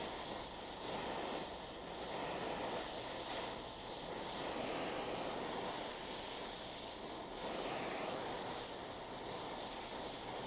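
Oxy-fuel torch with a neutral flame hissing steadily, held on aluminium to heat the joint for brazing.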